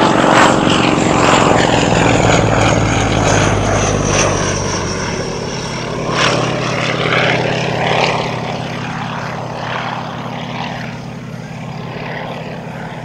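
Pitts Model 12 aerobatic biplane's 360-horsepower nine-cylinder radial engine and propeller running at power on an inverted pass. A high whine falls in pitch over the first few seconds, and the drone slowly fades as the plane climbs away.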